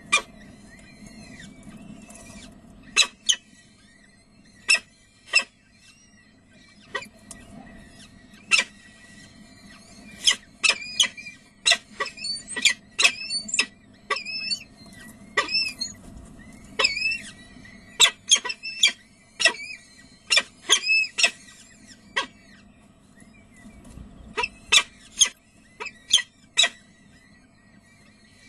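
Peregrine falcon chicks giving short, high, thin begging chirps in quick clusters while being fed. Many sharp clicks and taps run through it, and a faint steady hum lies underneath.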